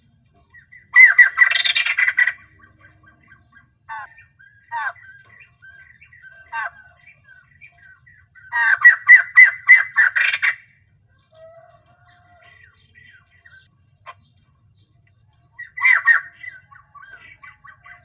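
Caged female white-crested laughingthrush calling: three loud bursts of rapid cackling notes, about a second in, around nine seconds in and near the end, with soft scattered chattering notes between them.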